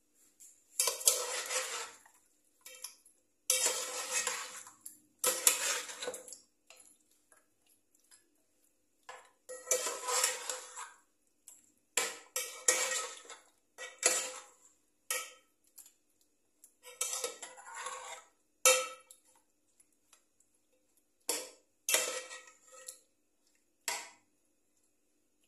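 Hands mixing raw chicken into a wet yogurt-and-spice marinade in a metal pot. The mixing comes in irregular squishing bursts, with clicks and clanks of the pot, and short pauses between the bursts.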